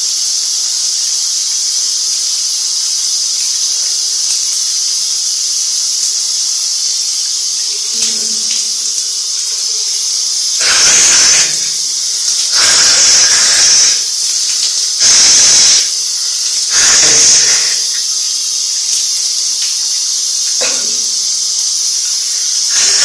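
Shower spray running with a steady hiss. A little after the middle come four louder rushing bursts, each about a second long, then a fainter one.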